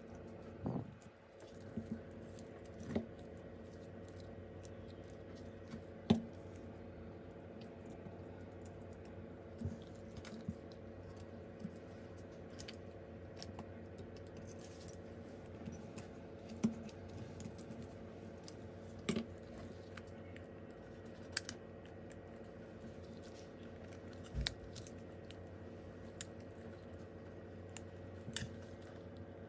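Scattered small clicks and taps of hand tools handling phone parts, the loudest about six seconds in, over a steady low hum.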